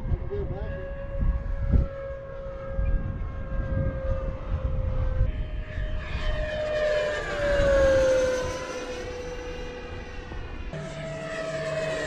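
FMS Super Scorpion 90mm electric ducted fan jet in flight, a steady high fan whine. It passes close about 7 to 8 seconds in, growing louder and falling in pitch as it goes by. Wind buffets the microphone in the first few seconds.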